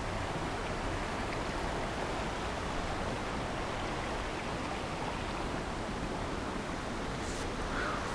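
River water flowing: a steady, even rush.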